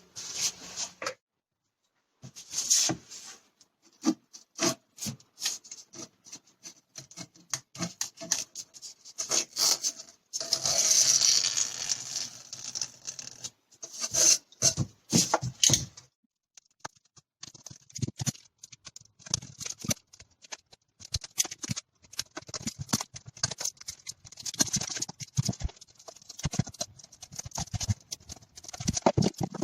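Old foam padding being scraped and picked off a car's fuel filler neck: irregular scraping and rubbing with small taps and knocks, broken by two short silent gaps.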